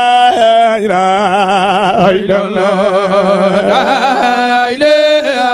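A man's voice chanting Islamic zikr (devotional remembrance of God) into a microphone, in long melismatic lines with a wavering vibrato, pausing briefly twice.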